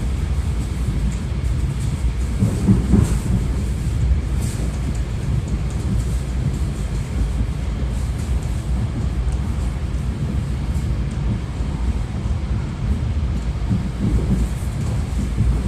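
Suburban electric train running, heard from inside the carriage: a steady low rumble of wheels on the track, with a few louder knocks about three seconds in and near the end.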